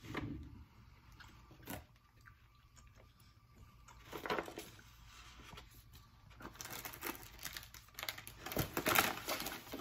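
Plastic snack packaging crinkling and rustling as it is handled. It is sparse at first, picks up about four seconds in, and is busiest with crackling in the last three seconds.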